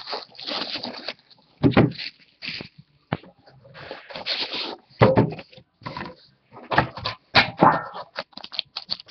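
A Panini Immaculate basketball card box is handled and opened: plastic shrink wrap rustles and crinkles, and the cardboard lid scrapes and slides off. A few sharp knocks come as the box is set down and moved, about two seconds in, in the middle and near the end.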